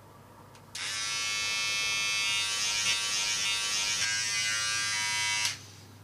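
Electric hair clipper buzzing steadily as it shaves a head, switched on under a second in and cutting off about five and a half seconds in.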